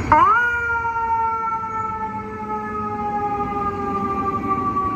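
Fire engine's mechanical siren, spun up sharply and then left to wind down: one long wail that falls slowly in pitch, over the low rumble of the truck's engine.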